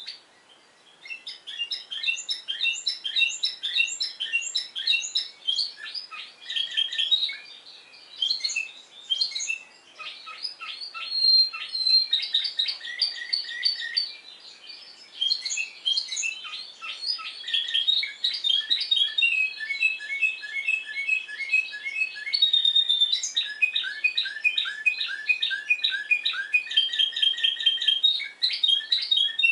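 Spanish Timbrado canary singing its discontinuous song: phrase after phrase of short, rapidly repeated notes, starting about a second in.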